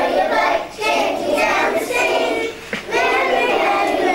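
A group of young children singing together, with two short breaks between phrases.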